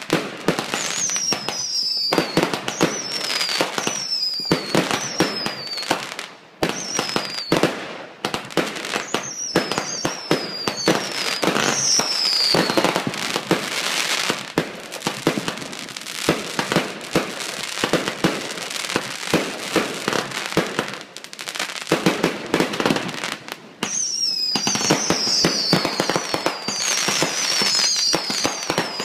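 Fireworks finale barrage: a rapid, continuous string of bangs and crackling, with many short whistles falling in pitch over them. The barrage dips briefly twice before picking up again.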